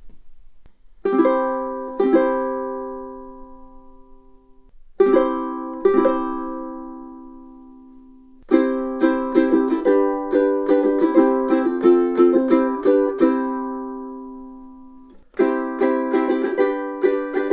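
All-solid koa concert ukulele made by DJ Morgan, strummed unaccompanied. It opens with single chords left to ring out, then settles into steady rhythmic strumming about eight seconds in, with a short break before the strumming starts again near the end.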